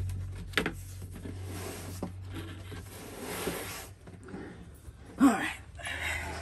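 Cardboard boxes being handled: a product box rubbing and sliding against its cardboard outer carton, with a knock under a second in and a short, louder sound about five seconds in.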